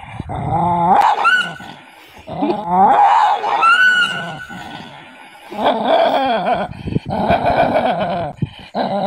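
A dog growling and snarling in repeated loud bouts, some of them rising into higher-pitched cries. It is an aggressive display at its own reflection in a motorcycle mirror, which it takes for another dog.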